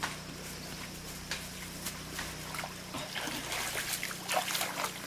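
Muddy pool water splashing and sloshing as a person wades through it and rummages in it by hand, the splashes getting busier in the second half. A steady low hum runs underneath, from the water pump draining the pool.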